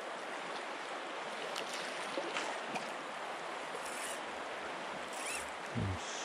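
Steady rush of a river's flowing current, with a few faint ticks and a short low sound near the end.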